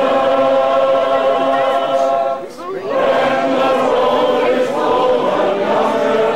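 A group of voices singing together in harmony, unaccompanied, holding long chords, with a brief break about two and a half seconds in.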